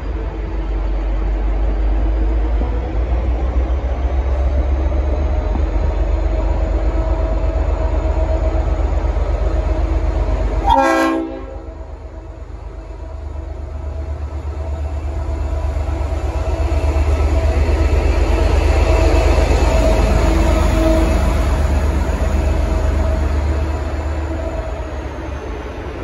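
Leslie RS5T five-chime air horn sounding long held blasts, edited in over the deep rumble of a departing V/Line N class diesel locomotive. The horn cuts off abruptly about eleven seconds in, sounds again from about fifteen seconds and fades near the end.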